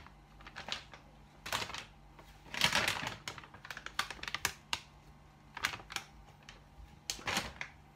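Crinkly plastic flour bag being handled, giving a string of short crackling rustles, with a longer burst about two and a half seconds in.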